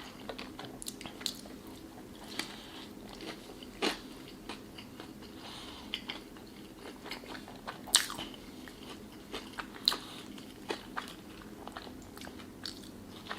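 Close-miked eating: a person chewing and biting fast food, with wet mouth clicks and a few sharp, crunchy bites.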